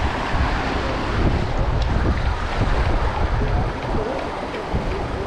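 Waves breaking and washing over jetty rocks, with wind buffeting the microphone in heavy low rumbles.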